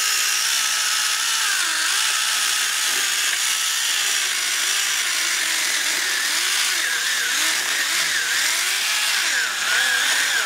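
Small 10.8 V cordless electric mini chainsaw running while cutting through a thick branch. The pitch of its motor dips and recovers again and again as the chain bites into the wood.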